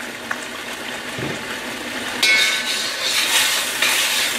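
Sweet-and-sour sauce simmering in a wok. About two seconds in, a metal spoon starts stirring it, clinking and scraping against the wok in repeated strokes.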